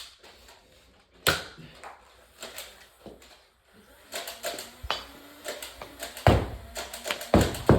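Nerf blasters being primed and fired: a sharp pop about a second in, then a quick run of clicks and pops from about four seconds in, the loudest two near the end.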